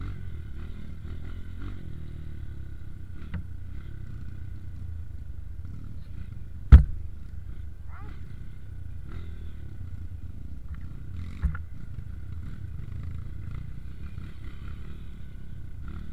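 Dirt-bike engines running with a steady low rumble. A single loud sharp bang comes about halfway through, and a smaller one a few seconds later.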